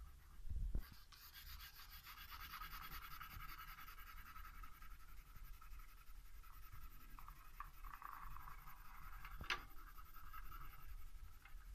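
Pencil scratching on drawing paper in rapid, continuous shading strokes. A low thump comes just before the strokes begin, and a sharp tick about nine and a half seconds in.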